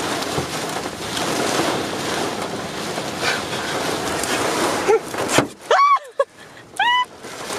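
Hail and heavy rain pelting the car's roof and windshield in a gusting wind, heard from inside the car as a dense, steady rush. It cuts off abruptly about five seconds in, and a few short, loud exclamations follow.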